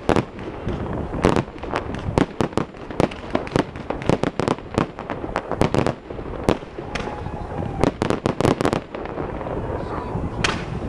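Fireworks display: rapid volleys of sharp bangs and crackling reports, several a second, coming in dense clusters and thinning out near the end.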